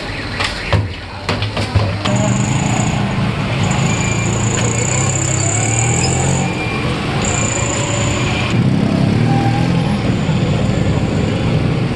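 A few sharp clicks and knocks of sliced vegetables being tossed by hand in a metal bowl, then, about two seconds in, steady street traffic noise with an engine running.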